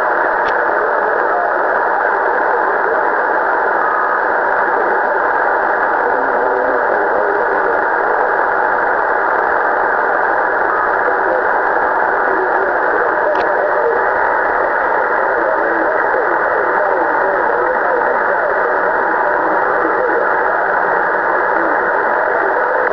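Steady static and hiss from a Kenwood HF transceiver's receiver, tuned near 27.39 MHz on the 11-metre band. The noise sits in a narrow voice-width band with faint muddled signals in it.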